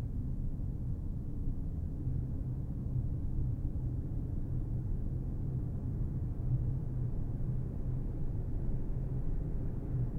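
Car driving at a steady pace: a constant low rumble of engine and road noise with a steady low hum.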